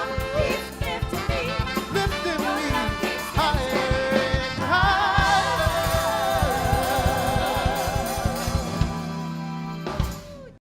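Pop/funk band music with singing: a singer holds long notes with vibrato over drums and band. It ends on a final hit and cuts off suddenly near the end.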